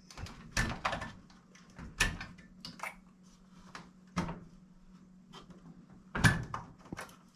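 Wire connectors being worked off the terminals of a Maytag dryer timer: a series of sharp plastic clicks and knocks, the loudest a little after six seconds in.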